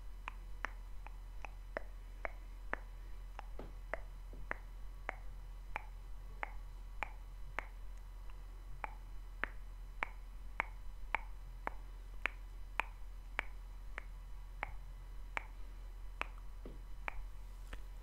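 Close-miked tongue and mouth clicks made over and over in an even rhythm, about two a second.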